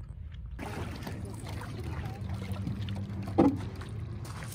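A Northstar solo canoe being boarded at the water's edge: the hull shifting with light water sounds, and one brief louder bump about three and a half seconds in.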